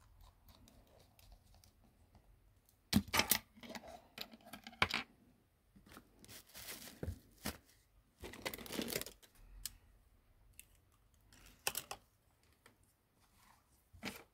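Scattered small clicks and taps, with a few brief scraping, rustling bursts, from small smartphone parts and tools being handled during a board swap.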